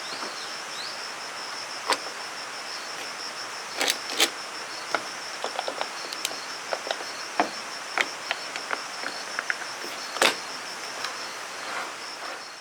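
An insect chirping in a steady, evenly pulsing high rhythm over a constant hiss, with scattered irregular clicks and knocks.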